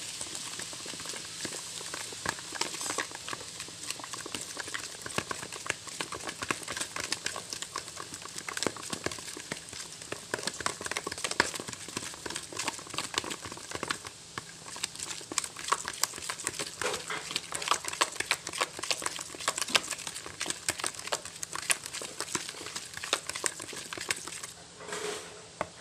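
Hand-stirring a soft butter, sugar and egg pastry mixture in a plastic bowl with a utensil: a dense, irregular run of quick scrapes and wet clicks.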